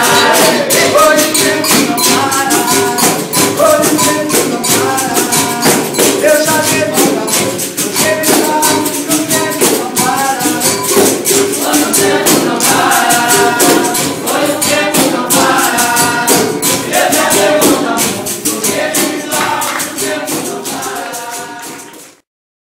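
Capoeira roda music: berimbaus with rattling percussion, hand clapping and group singing in a steady rhythm, fading out near the end.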